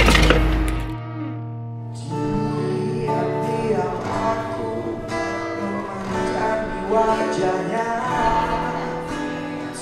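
In the first second a vehicle's low rumble. After a short lull, live acoustic guitar starts about two seconds in, with a man singing held notes into a microphone over it.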